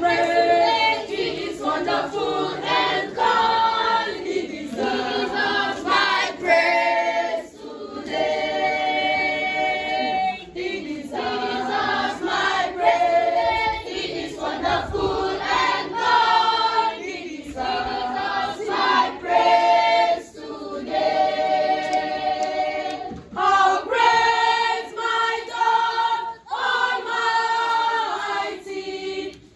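Church choir of mostly girls and young women singing together in phrases of long held notes, with short breaks for breath between phrases.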